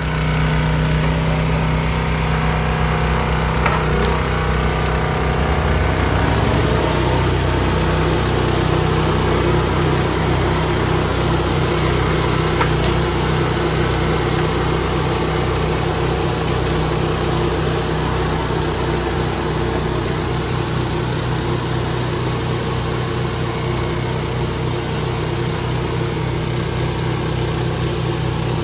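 Small gasoline engine of a Countyline 25-ton hydraulic log splitter running steadily as rounds are split, its note changing about six seconds in.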